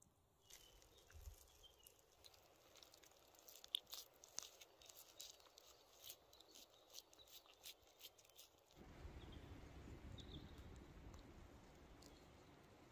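Hands pressing and rolling a raw steak stuffed with vegetables and mozzarella on a wooden board: faint, quick wet clicks and crackles. About two-thirds of the way in these stop and a steady faint hiss takes over.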